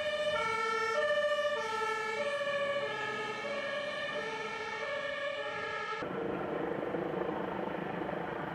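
German fire engine's two-tone siren sounding, a high and a low note alternating about every half second. It cuts off suddenly about six seconds in, leaving a steady rushing noise.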